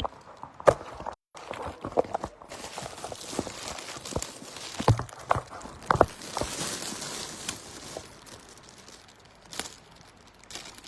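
Mobile phone chargers being handled: irregular plastic clicks and knocks, with packaging rustling and crinkling for a few seconds in the middle.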